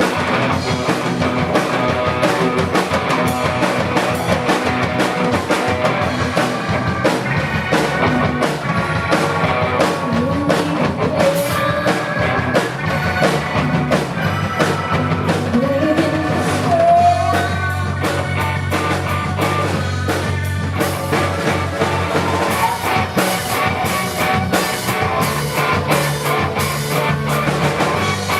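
Live rock band playing, with a drum kit hitting steadily under electric guitar and a singer's voice.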